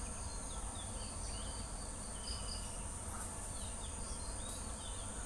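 Steady high-pitched drone of insects such as crickets, with faint short chirps scattered through it and a low hum underneath.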